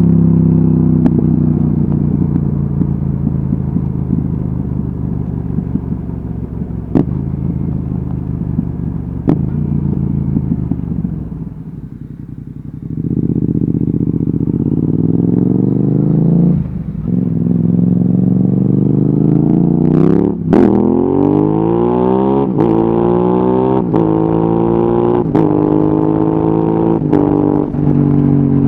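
Yamaha XSR700's parallel-twin engine through an Akrapovic exhaust, heard from the bike. The engine note falls away as the bike slows for about twelve seconds. It then pulls hard, climbing in pitch through two quick gear changes before settling. A few sharp ticks come through now and then.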